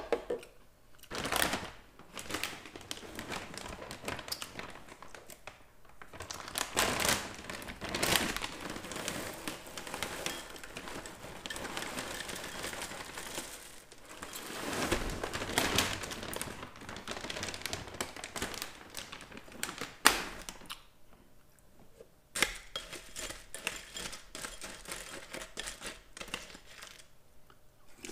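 Plastic bag of Oreo O's cereal crinkling and rustling as it is handled and opened, and dry cereal rattling into a ceramic bowl, with dense fine ticking of small pieces. One sharp click stands out partway through.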